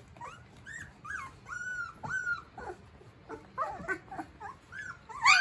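Fifteen-day-old golden retriever puppies whimpering: a string of short, high-pitched, arching cries, coming one after another and growing busier, with the loudest cry near the end.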